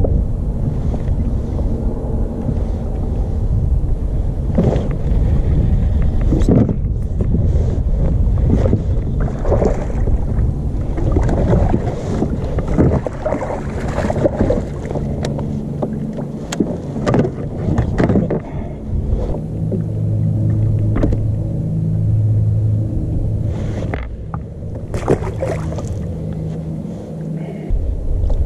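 Sounds aboard a fishing kayak: a steady low rumble with scattered knocks and clunks against the hull.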